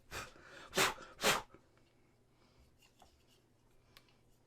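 Three quick, sharp puffs of breath blown out about half a second apart, blowing loose baby powder off a resin model.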